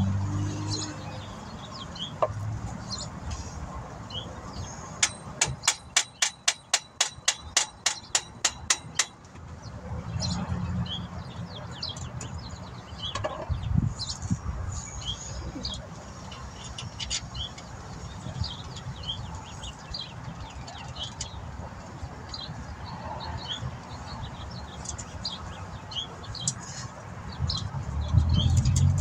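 Small birds chirping on and off over a low steady rumble. About five seconds in, a run of some twenty sharp, evenly spaced clicks lasts about four seconds, from the work on the alternator mounting under the hood.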